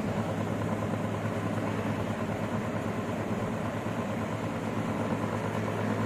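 Small DC motor fan running steadily, a low even hum with a whirr of the blades.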